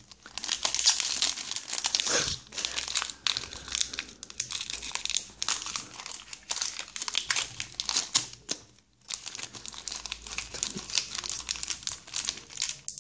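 Foil wrapper of a Pokémon trading-card booster pack crinkling as it is handled and torn open by hand, as a dense crackle that is loudest in the first couple of seconds and stops briefly about nine seconds in.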